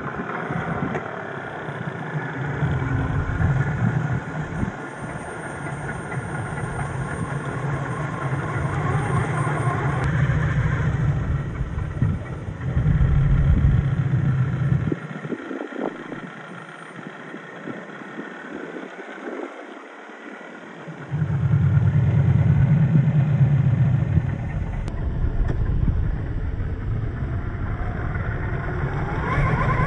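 1/10 scale RC crawler trucks' electric 540 motors and gear drives whining as they crawl through loose dirt, the pitch and level shifting with the throttle. The sound drops away for a few seconds past the middle, then comes back louder.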